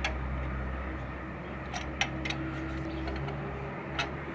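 Sharp metal clinks of wrenches and parts on a stripped diesel engine block: one at the start, a quick cluster about two seconds in, and another near the end. Under them a steady low machine hum.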